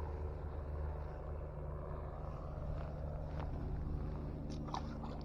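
Steady low background rumble with a hum, with a few faint clicks near the end.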